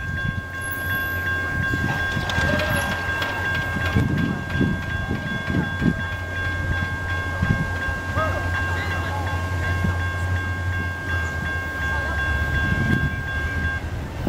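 Railroad crossing signal bell ringing steadily while the crossing gate lowers, falling silent near the end as the gate comes down. Underneath is a steady low rumble.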